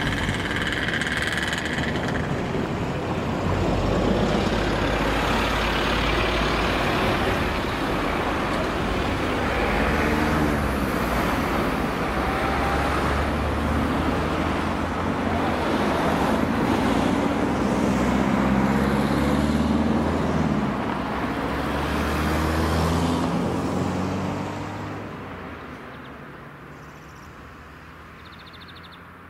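A heavy diesel vehicle running close by, its engine note rising and falling in pitch, then fading away over the last few seconds.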